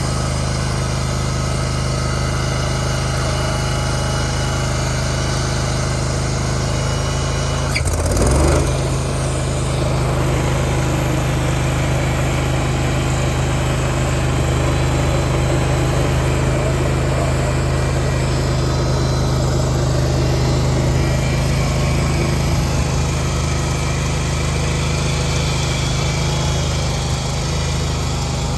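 Rayco RG37 stump grinder's engine running steadily. About eight seconds in there is a short loud clatter, after which the engine runs a little louder.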